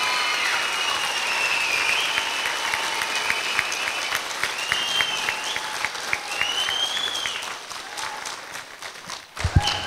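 Audience applauding, many hands clapping together, thinning out and fading near the end.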